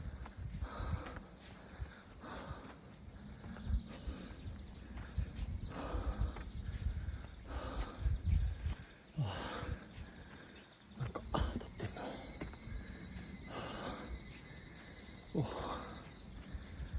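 Footsteps on a forest trail, a step every second or two, over a steady high-pitched chorus of insects.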